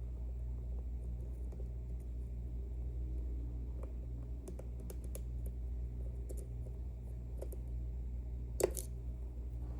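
Faint metallic clicks and scratches of lock picks working inside an Ezcurra C23 slider lock, with one louder click near the end, over a steady low hum.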